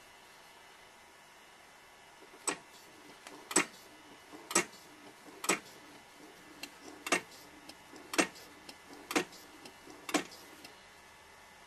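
Rotary microtome sectioning a paraffin-embedded tissue block: a sharp mechanical click about once a second, about eight in a row with fainter ticks between, as each stroke carries the block past the knife and adds a section to the paraffin ribbon.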